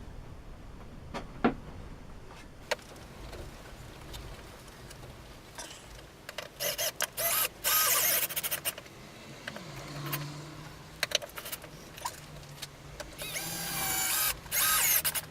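Power drill running in a series of short bursts and then longer runs, about six seconds in and again near the end, with a single knock earlier on.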